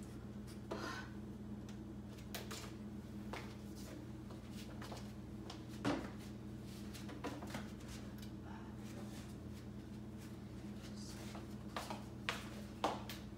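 Scattered light knocks and clicks from household items being handled and packed, over a steady low hum. The loudest knock comes about six seconds in, and a few sharper clicks come near the end.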